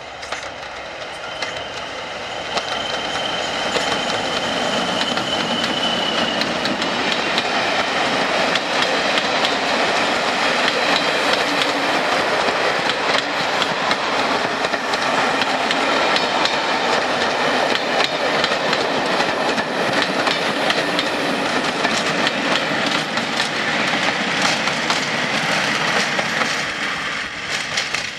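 A diesel-hauled passenger train passing close by. An English Electric locomotive leads, and a rake of coaches follows, their wheels clattering over the rail joints. A Class 55 Deltic locomotive on the rear goes past near the end. A faint high whine sounds in the first few seconds. The sound builds over the first few seconds, stays loud, then falls away at the very end.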